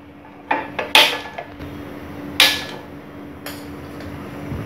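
Hand-held spark gas lighter clicking four times to light a gas stove burner. After the last click a steady faint hiss follows as the burner lights.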